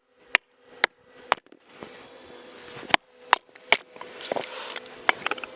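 Chisel being struck to rough out jujube wood: sharp knocks about two a second, in a run of three, then three more after a pause, then lighter taps near the end.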